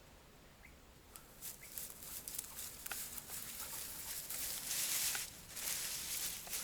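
Footsteps and rustling of tall vegetation as a person walks through grass and reeds, with small snaps and crackles, starting about a second in and growing louder.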